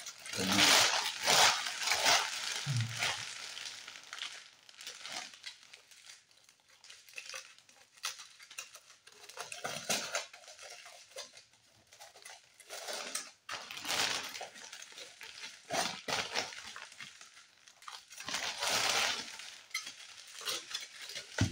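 Crinkling and rustling of an Easter egg's wrapping in irregular bursts: the shiny plastic outer wrapper handled first, then aluminium foil peeled and crumpled off the chocolate egg.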